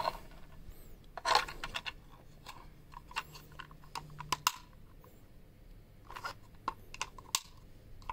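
Flat-blade screwdriver pressed and levered against a blue plastic remodel electrical box: irregular light clicks, scrapes and small plastic snaps, with a few sharper clicks about a second in, midway and near the end.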